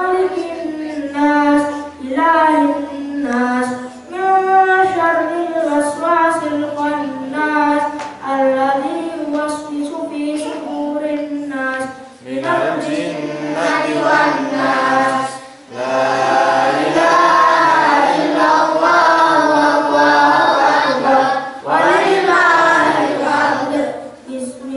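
A boy chanting Qur'anic recitation through a microphone in long, high-pitched melodic phrases. About halfway through the chant becomes louder and fuller, with long held notes, then stops near the end.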